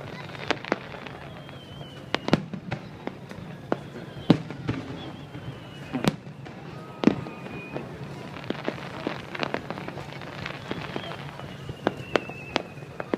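Fireworks going off: a rapid scatter of sharp crackles and pops, with louder bangs about two, four, six and seven seconds in, and thin falling whistles between them.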